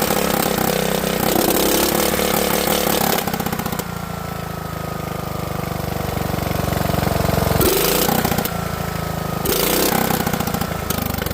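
Small lawnmower engine running, faster and louder for about the first three seconds, then dropping to a steady idle with its firing strokes plainly audible, picking up briefly twice more. The owner says it idles well but is running far too rich and flooding badly from its faulty carburetor.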